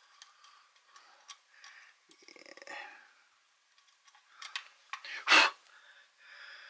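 Light scraping and small clicks of a blade working over the aluminium carburetor body of a Husqvarna 266 XP chainsaw, cleaning old gasket material off the mating surface. There is one louder, short, rasping sound about five seconds in.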